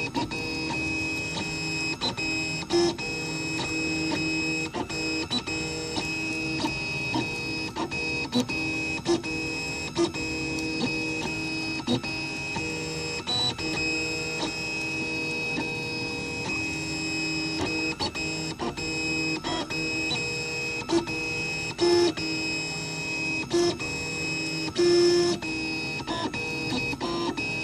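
3D printer at work: its stepper motors whine at several steady pitches at once, broken by frequent short ticks, with a few brief louder bursts.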